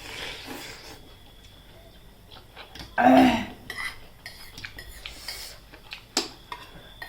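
Spoons and forks clinking and scraping against bowls of noodle soup during eating, with a brief loud mouth sound about three seconds in and a sharp clink near the end.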